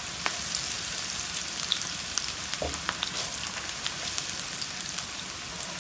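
Sliced onions sizzling in hot oil in an electric skillet: a steady hiss with many fine crackles, and a few light taps of a silicone spatula stirring them.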